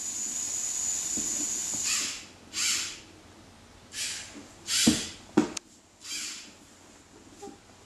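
LEGO Mindstorms TRACK3R robot's electric motors whirring as it is driven by remote: a steady high whine for the first two seconds, then four short half-second bursts. Two sharp knocks come about five seconds in.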